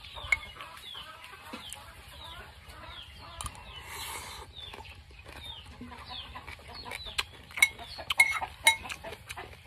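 Chickens clucking and peeping, many short falling calls repeated throughout. Sharp clicks from a metal spoon against a ceramic bowl come near the end.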